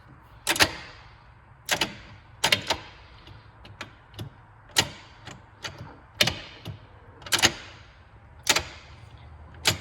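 Irregular sharp clicks and knocks, about fifteen of them and some in quick pairs, from hand tools and parts being worked during a short-throw shifter bracket and bushing install.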